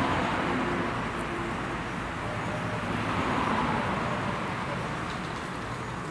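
Steady rushing outdoor background noise that slowly swells and eases, with a faint low hum near the start.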